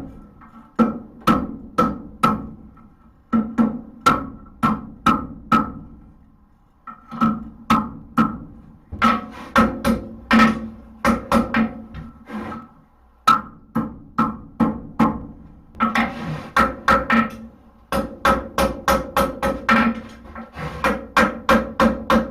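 Hand hammer striking hot steel on an anvil in runs of quick blows, each one ringing, with short pauses about six seconds in and again around thirteen seconds. The blows draw out the tip of a horseshoe being forged into a hoof pick.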